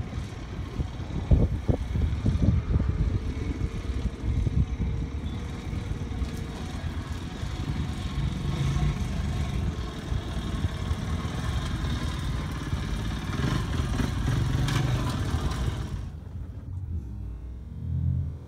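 Off-road motorcycle engine running and revving unevenly as the bike climbs a rocky hillside under load. The sound stops abruptly near the end.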